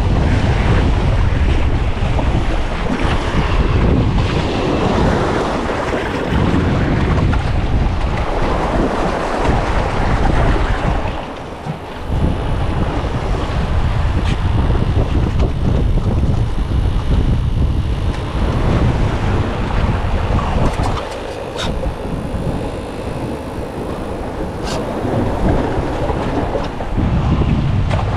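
Strong wind buffeting the microphone in gusts, with ocean surf washing in behind it.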